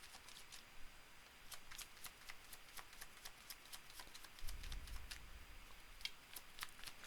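Tarot cards being shuffled and handled: faint, quick card snaps and slides, with a soft low bump about four and a half seconds in.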